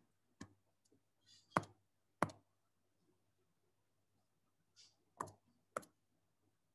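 Five faint, sharp clicks at irregular intervals, three in the first two and a half seconds and two more just past five seconds, over a faint steady low hum.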